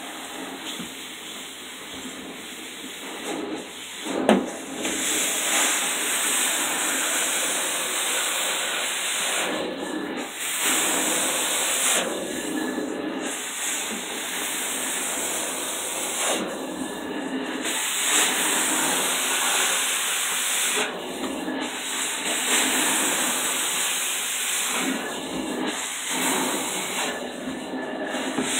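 Carpet cleaner's suction running through a hose and hand tool drawn over stair carpet: a steady rushing hiss that dips and swells with each stroke of the tool. A single sharp knock about four seconds in.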